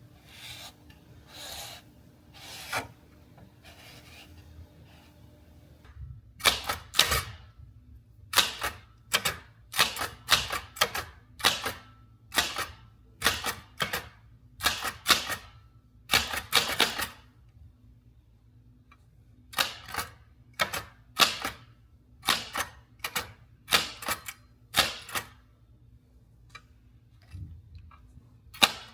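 Typewriter keys striking in irregular runs of sharp keystrokes, broken by pauses of a couple of seconds. The first few seconds hold only softer, lighter taps.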